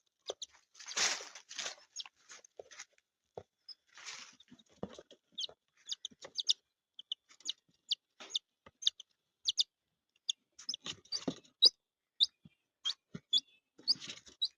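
Birds chirping: scattered short, high chirps at irregular intervals, with a few soft rustles in between.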